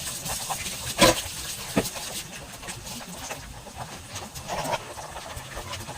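Something sizzling in a cooking pot with a steady high hiss, with a sharp knock about a second in and a lighter one just before two seconds.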